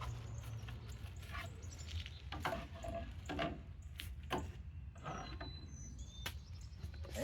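Cardboard and plastic packaging being handled during an unboxing: scattered rustles, knocks and clicks over a steady low hum.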